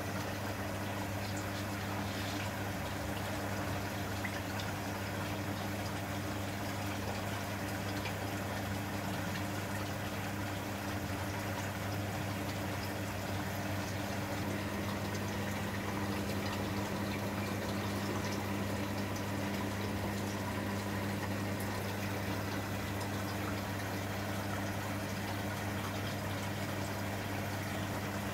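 Aquarium pump running with a low steady hum and water bubbling evenly in the tank.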